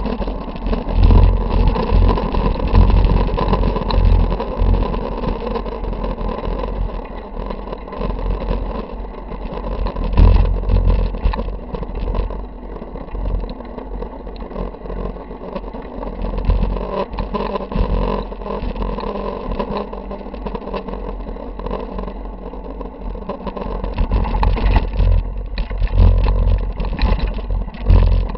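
Mountain bike riding heard through a handlebar-mounted camera: heavy wind rumble on the microphone with tyre noise and frequent rattles and knocks of the bike over the ground. It is quieter through the middle and grows louder and rougher near the end as the bike moves from pavement onto a dirt trail.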